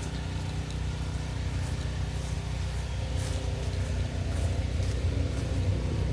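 A small engine running steadily at an even pitch, growing slowly louder.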